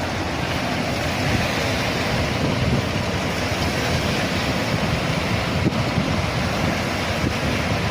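Strong wind blowing across the microphone by the sea, a steady rushing noise with surf mixed in.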